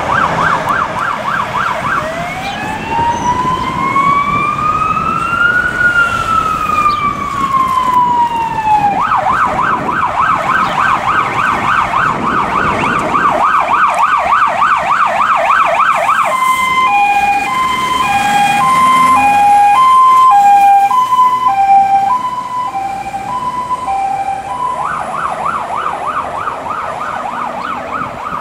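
Electronic siren of a Mercedes-Benz Actros military fire tender on an emergency run, switching modes. It starts on a fast yelp, turns to a slow wail that rises and falls about two seconds in, returns to the fast yelp, changes to a two-tone hi-lo at about sixteen seconds, and ends on the yelp again. The truck's engine rumbles underneath.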